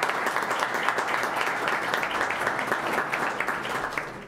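Audience applauding, a dense patter of many people's claps that tails off near the end.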